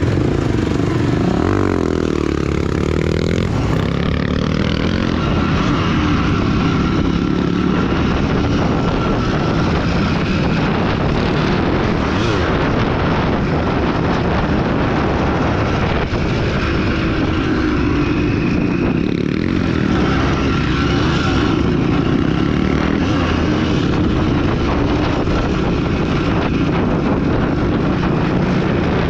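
Off-road motorcycle engine running steadily, its pitch rising and falling with the throttle.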